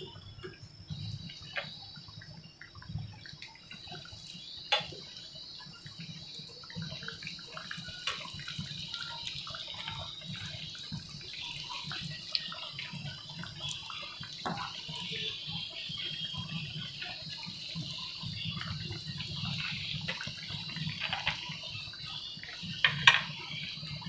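Hara bhara kababs deep-frying in hot oil: a steady sizzle that grows slightly louder, with a few sharp clicks of a metal fork against the pan as the patties are turned.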